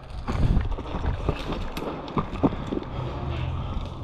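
Footsteps crunching over gravel and dirt, with irregular light knocks of gear as a player moves, and wind buffeting a GoPro's microphone.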